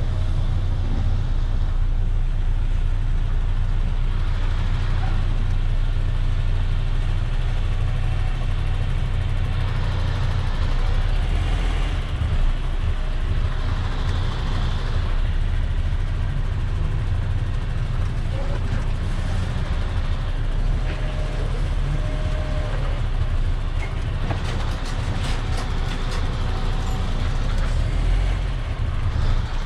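Semi-truck's diesel engine running steadily as a low rumble, heard from inside the cab while the truck is manoeuvred at low speed. A few light clicks come near the end.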